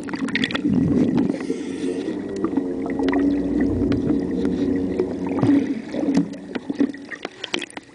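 Boat motor droning, heard through the water, with scattered clicks and knocks; the drone fades near the end.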